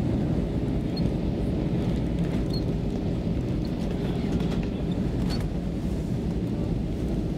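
Steady cabin noise inside an Airbus A320 in flight: the even, low rumble of the engines and the air rushing past the fuselage, with a few faint ticks.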